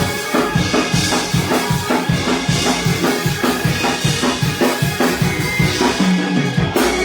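Live church band music driven by a fast drum kit beat, bass drum and snare hitting several times a second under sustained instruments.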